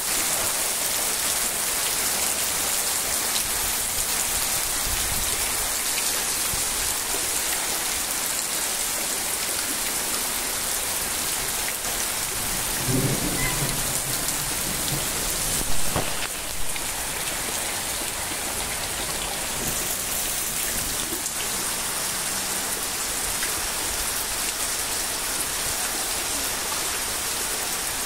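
Heavy rain pouring down onto a flooded street, a steady hiss of rain hitting the water. A single sharp knock about sixteen seconds in.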